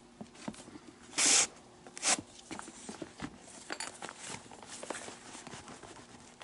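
Leather lace being pulled through the lacing holes of a baseball glove during relacing: a short loud rasping zip about a second in and a shorter one a second later, amid scattered rustles and clicks of the leather being handled.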